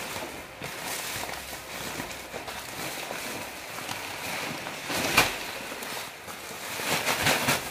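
Plastic bag rustling and crinkling as it is pulled open and peeled off a sack, with a sharp, loud crackle about five seconds in.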